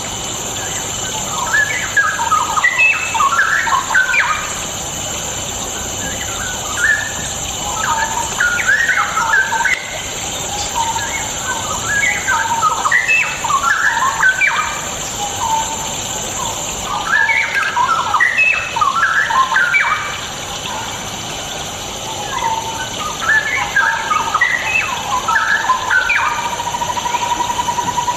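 Straw-headed bulbul singing bursts of loud, quick, bubbling warbled phrases a few seconds long, with pauses between them, over a steady hiss. Near the end comes a rapid, even run of repeated notes.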